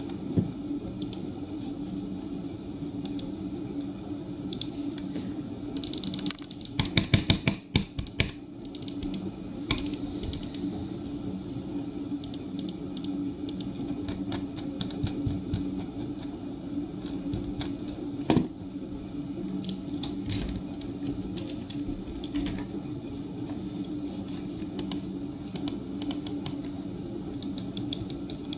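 HP M150 gaming mouse's buttons clicking: scattered single clicks, with a quick run of rapid, louder clicks several seconds in, over a steady low hum.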